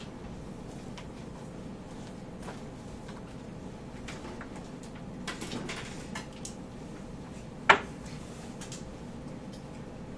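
Quiet classroom room tone while students copy notes, with scattered faint clicks and rustles and one sharp click or knock about three-quarters of the way through.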